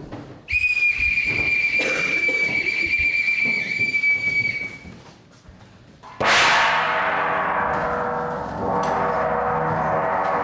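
A whistle blown in one long, steady high note for about four seconds, then a gong struck hard about six seconds in and left ringing, swelling again near the end.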